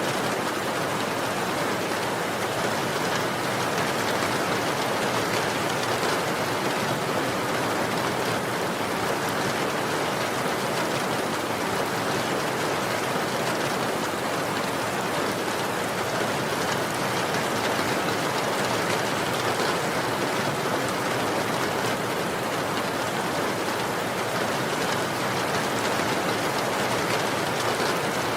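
Steady, heavy rain falling, a dense even hiss of drops with no separate drips or thunder standing out.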